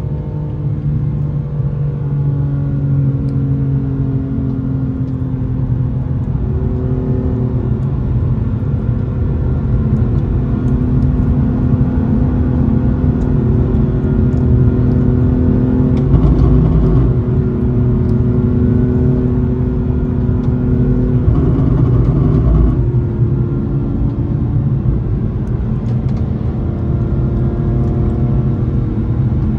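Car driving at a cruise: the engine runs steadily over a heavy low road rumble, its pitch drifting slightly, with a brief surge of throttle about halfway through and another a few seconds later.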